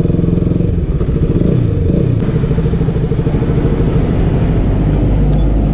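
KTM RC 200's single-cylinder engine running; its revs drop about one and a half seconds in, and it then idles steadily.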